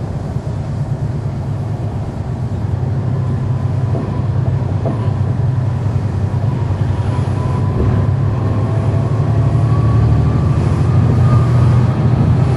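Cummins ISL9 inline-six diesel engine of a NABI 416.15 (40-SFW) transit bus, heard from the rear of the bus, running steadily and growing gradually louder. A faint whine slowly rises in pitch in the second half.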